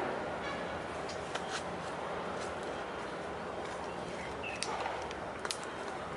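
Steady outdoor background hiss with a few short, high chirps and clicks scattered through it.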